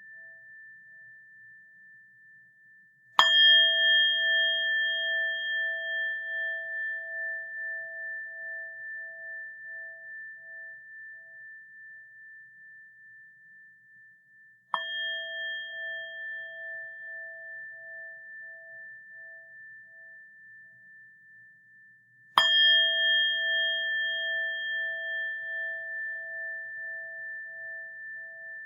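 A small bell struck three times, the strikes about eleven and then eight seconds apart. Each strike rings on in a clear tone that fades slowly over many seconds, its lowest note wavering in a slow pulse.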